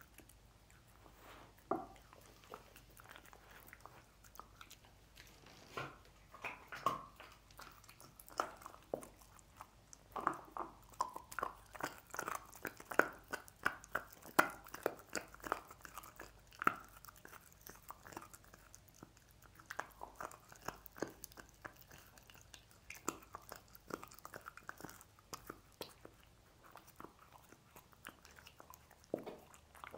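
A dog chewing and crunching on pork bones: irregular bites and crunches, coming thick and fast from about ten seconds in to about seventeen seconds, sparser near the start and the end.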